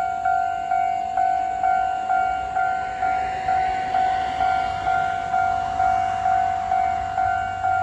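Level-crossing warning bell ringing at a steady pace of about two strikes a second. Over it, a DR3100 diesel multiple unit passes the crossing, its rush of noise swelling through the middle and a low rumble building near the end.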